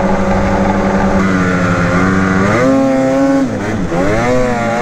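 Polaris Matryx Assault 850 snowmobile's two-stroke Patriot 850 twin running under throttle. The revs hold steady at first, then rise about halfway through as the sled picks up speed. Near the end they dip briefly and climb straight back up.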